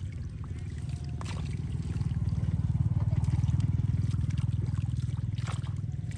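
A motor running steadily with a low, evenly pulsing rumble that grows louder over the first couple of seconds and then eases a little, with a few short clicks over it.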